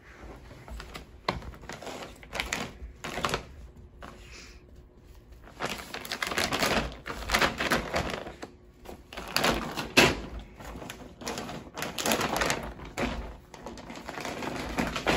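Plastic pouch of dog dental chews crinkling and rustling in irregular bursts as a Basenji noses, paws and pushes it about on carpet. It gets busier about a third of the way in.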